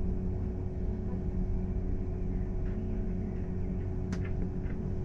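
City bus running, heard from inside the passenger cabin: a steady low rumble with a constant hum above it, and a faint click about four seconds in.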